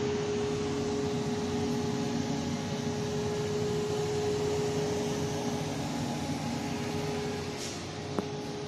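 Cooling fans of a barley fodder growing cabinet running: a steady whirring noise with a steady hum tone through it. One small click comes near the end.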